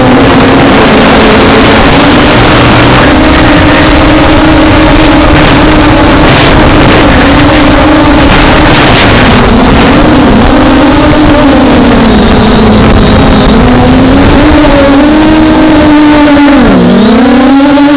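The brushless motors and propellers of an MJX Bugs B5W quadcopter make a loud, steady whine whose pitch keeps wavering up and down as the drone corrects against gusty wind. The pitch dips sharply and recovers near the end. A constant rushing noise runs underneath.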